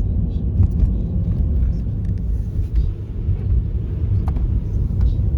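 A car driving, with a loud, steady low road and engine rumble and a few faint clicks.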